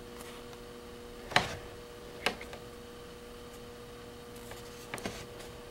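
Faint steady electrical hum with a few small sharp clicks scattered over it, the loudest about a second and a half in.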